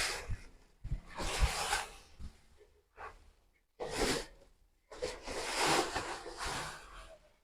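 A rake dragging through loose sawdust bedding in several scraping strokes, each one to two seconds long, with a few low knocks in the first second or so.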